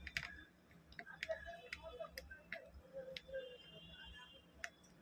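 Faint, irregular clicks and taps, about six over the few seconds, from small plastic parts of a trimmer being handled while it is put back together.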